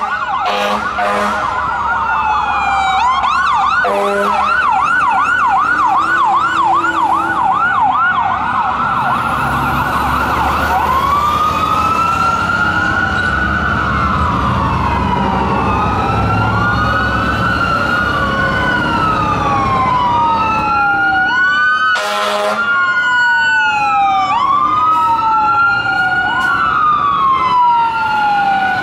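Fire engines' electronic sirens on an emergency run: a fast yelp for about the first ten seconds, then a slow rising-and-falling wail, with a second siren wailing out of step over it later on. Short horn blasts sound about four seconds in and again around 22 seconds, over the low rumble of a passing engine.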